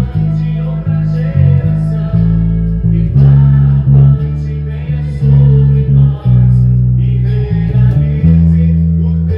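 Four-string electric bass playing a worship-song bass line: a steady chain of plucked low notes, each ringing and fading until the next is struck, over the recorded song with singing.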